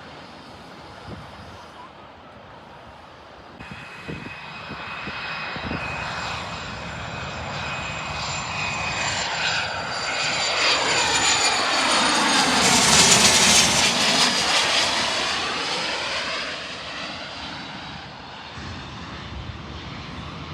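Airplane passing low overhead, with a steady high engine whine. It grows louder to a peak about two-thirds of the way through, then fades as it moves away.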